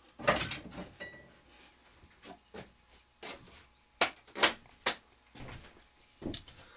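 Pieces of scrap wood knocking and clattering as they are rummaged through and picked up: a string of sharp wooden knocks, the loudest a cluster right at the start and three more about four to five seconds in.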